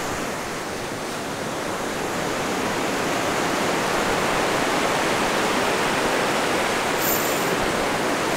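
Ocean surf washing onto the beach, a steady hiss of breaking waves that swells slightly.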